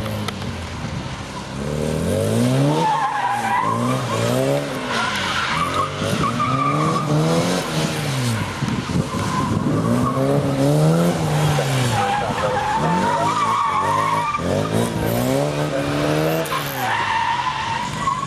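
Car engine revving hard and dropping back again and again as it is driven flat out through tight turns, with tyre squeal several times along the way.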